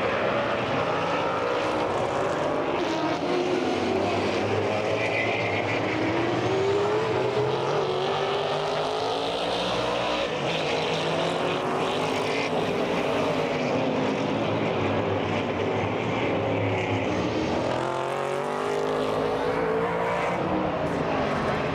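Trans-Am race cars' V8 engines at high revs as cars pass one after another, the engine note rising and falling repeatedly with gear changes and passes.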